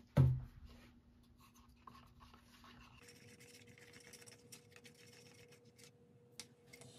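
A single thump just after the start, then faint scraping and tapping of a wooden craft stick stirring white acrylic base paint in a plastic cup.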